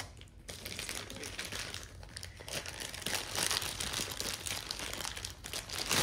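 Clear plastic packaging bag crinkling and rustling as a grooming attachment in it is handled and unwrapped, a continuous crackle of many small crinkles.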